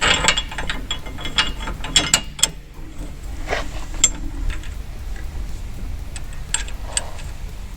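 Irregular metallic clicks and clinks as a steel bumper mounting bracket is bolted to the frame with a nut and bolt; the clicks come thickest in the first couple of seconds and are scattered after.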